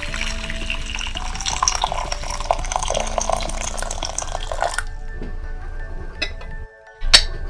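Spatula stirring thick matcha white-chocolate ganache in a glass bowl: wet squelching and smacking that stops about two-thirds of the way through, then a sharp clink near the end. Background music with steady tones plays throughout.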